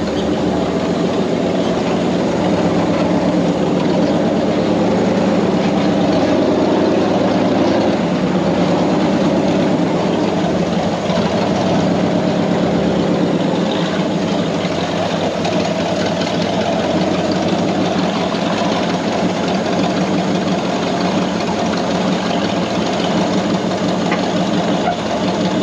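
Off-road rig's engine running steadily close by during a slow crawl over rock.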